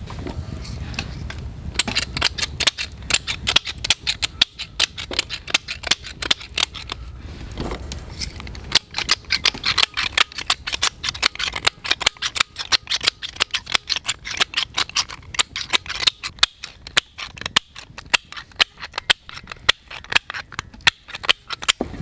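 One-handed squeeze-action salt and pepper mill grinding, a fast run of sharp ratcheting clicks with a short break about seven or eight seconds in. The mill is cracking whole peppercorns, which come out slowly.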